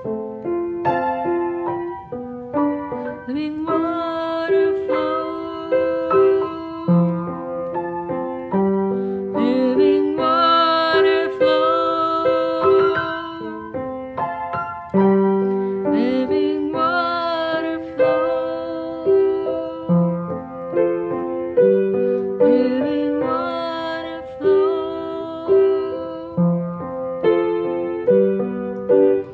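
Solo piano playing a slow, gentle instrumental passage of a worship song: held chords and melody notes struck in a steady, unhurried rhythm.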